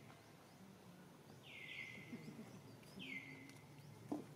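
Faint bird calls, three in all: each sweeps down and then holds briefly on a lower note. A single sharp click comes near the end.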